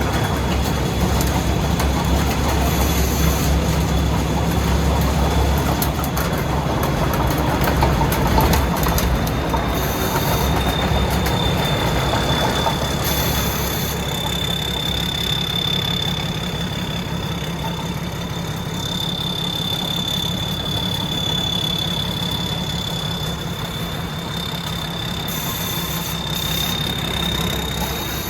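Thai Seng Yont 'Thunder' combine harvester's 250-horsepower engine running steadily under load, with machinery noise and a steady high whine over it.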